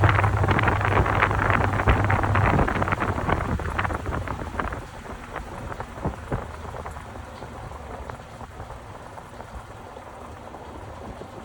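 Top-loading washing machine agitating: a low motor hum and water sloshing and splashing in the tub. About two and a half seconds in the motor stops and the splashing dies away over the next few seconds, leaving the water settling quietly as the agitator pauses.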